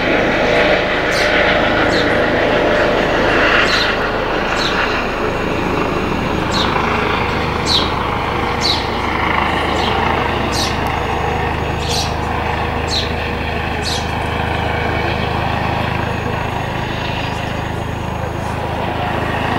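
Police helicopter flying overhead, its rotor and turbine giving a steady drone and rush. A short high chirp repeats about once a second over it.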